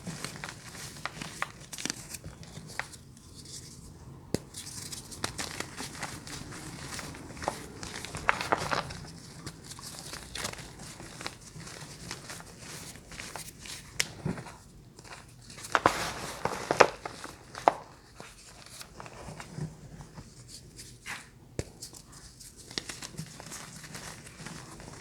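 Crinkling and tearing of wrappers mixed with crisp cracks and crunches from crunchy bars, a string of irregular sharp snaps, loudest around two-thirds of the way through.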